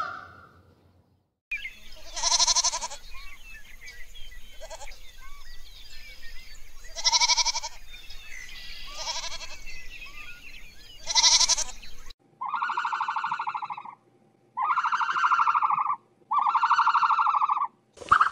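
Animal calls in two runs. First come several high, wavering cries a few seconds apart over faint background chatter. Then, after an abrupt change, three long, quavering calls of about a second and a half each, evenly spaced.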